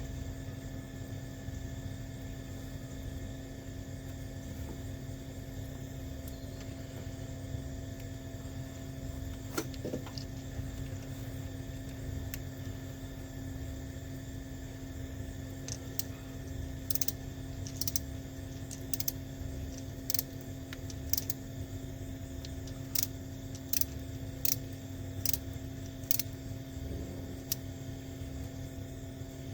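Light metallic clicks and taps of hand tools and battery-terminal hardware being handled, scattered at first and coming often in the second half, over a steady low hum.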